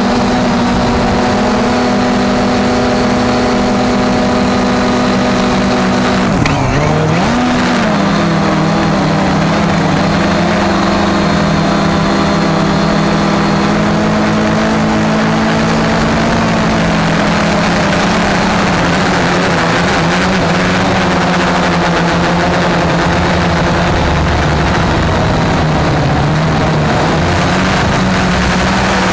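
Cheerson CX-20 quadcopter's motors and propellers giving a loud steady buzzing hum in flight. About six and a half seconds in, the pitch dips sharply and comes back as the throttle changes.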